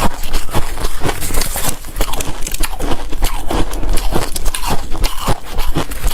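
Hard shaved ice and crushed hard ice being bitten and chewed close to the microphone, a steady run of quick crunches and crackles.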